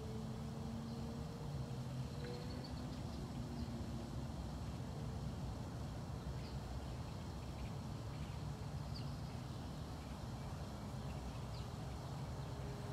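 Outdoor background: a steady low rumble with a faint hum that comes and goes, and a few faint, brief bird chirps.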